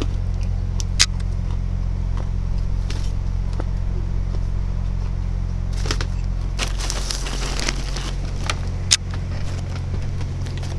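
Steady low mechanical hum, with a sharp click about a second in, a brief rustle about seven seconds in, and another click near the end.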